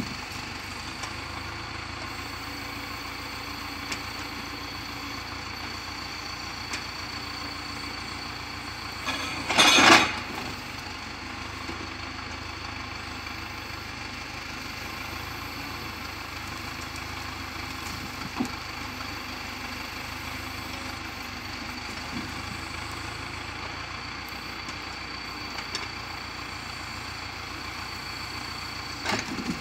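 Tractor engine running steadily while its hydraulic timber crane handles pine logs, with a loud clatter of logs knocking together about ten seconds in and a few lighter knocks later.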